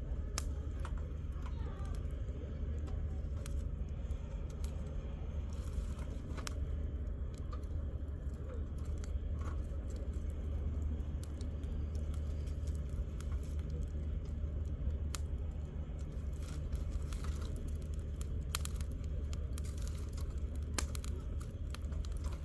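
Firewood burning in a campfire, crackling with scattered sharp pops over a steady low rumble.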